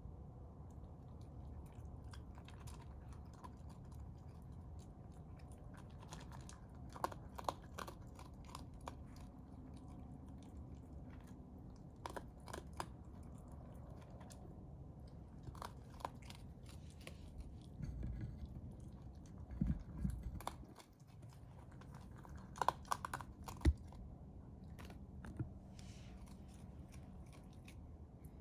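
Raccoon chewing and crunching food, with irregular crunches and clicks every few seconds over a steady low hum.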